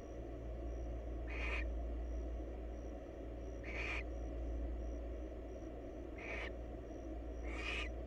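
Barn owl giving short, rasping hiss calls, four of them spaced a second or two apart, over a steady low hum.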